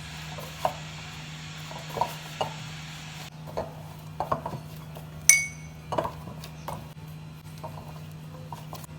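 Kitchenware knocking and clinking on the counter while dough is kneaded by hand: a handful of short, scattered knocks and one bright, ringing clink about five seconds in, over a steady low hum.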